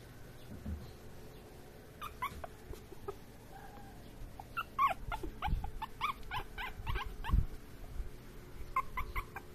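A white mixed-breed puppy whimpering in short, high squeaks, coming in quick runs from about two seconds in, thickest through the middle and again near the end, with a few low bumps between them.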